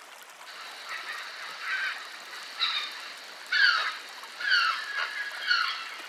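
Grey heron calling: a series of short calls, about one a second, each dropping a little in pitch, over a faint steady hiss.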